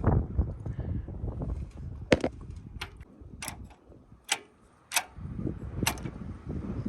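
Throttle lever and linkage on a Case 646 loader being worked by hand, giving six sharp clicks about a second apart over low handling noise.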